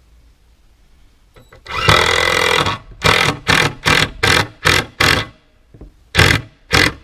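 Cordless screw gun driving a screw into the picnic table's wood: one run of about a second, then a series of short trigger bursts about three a second as the screw is driven home, a brief pause, and more bursts near the end. The screw pulls the board straight.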